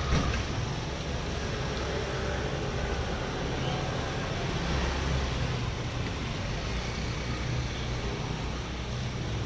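Steady roadside traffic noise from passing cars and scooters, with a low rumble throughout. There is a single short knock just at the start.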